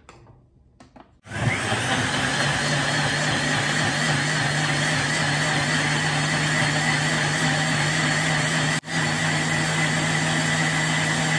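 Countertop blender starting about a second in and running steadily, blending a strawberry, milk, yogurt and ice-cream smoothie mixture. It cuts out for an instant about two-thirds of the way through and picks straight back up.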